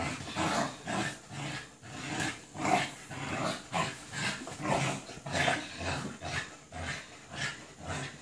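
American Bully puppy play-growling in short rough bursts, about two a second, while tugging on a toy.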